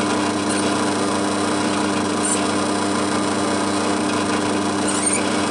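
Drill press motor running steadily with a steady hum while a 4.5 mm bit is fed through a spacer block to drill a clearance hole.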